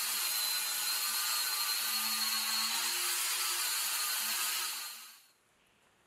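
Grinder with a flap wheel running against steel, knocking down welds on square steel tube: a steady high whine over a grinding hiss, fading out about five seconds in.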